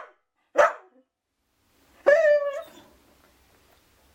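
Dog barking twice: a short bark about half a second in, then a longer, drawn-out pitched bark about two seconds in.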